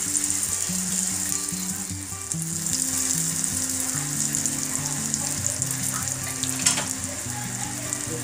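Folded appalam (papad) deep-frying in hot oil in a kadai: a steady hissing sizzle with fine crackling and one louder crackle about two-thirds through. Soft background music plays under it.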